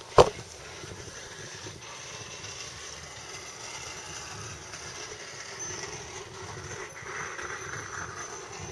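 A single sharp knock just after the start, then a steady outdoor background noise.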